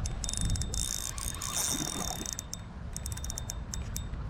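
Pflueger President XT spinning reel's drag ticking out in quick spurts as a hooked chinook salmon pulls line against it.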